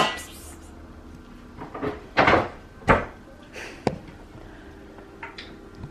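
A string of sharp knocks and bumps, about seven in all, irregularly spaced, the loudest at the very start and a couple of seconds in.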